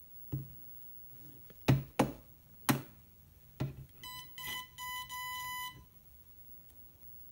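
A handful of sharp plastic knocks from the RC transmitter being handled, then the WLtoys K696 V2 LCD transmitter's buzzer: a few short electronic beeps about four seconds in, followed by one steady beep lasting about a second.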